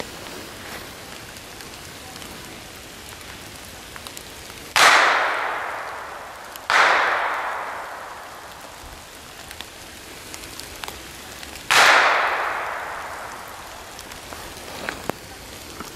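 Three gunshots, about five seconds in, again under two seconds later, and once more about five seconds after that, each ringing out in a long echo through the woods. They are the shots fired to mark the fall of a dummy for a retrieving dog.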